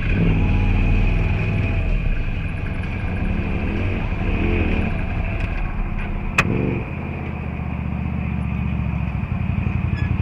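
Idling engine of a stopped off-road vehicle, running steadily, with a single sharp click about six seconds in.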